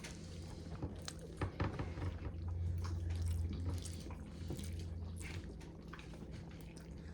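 A person slurping and chewing ramen noodles, with many short wet clicks and smacks.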